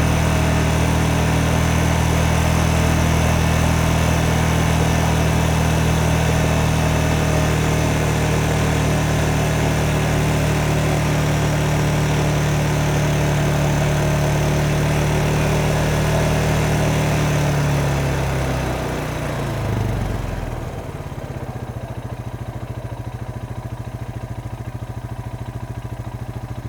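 Motorcycle engine running steadily, then its pitch falls about 18 to 20 seconds in and it settles into a quieter, even idle.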